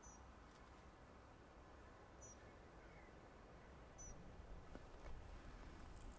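Near silence: faint outdoor quiet with a short, high double chirp from a small creature, repeating about every two seconds.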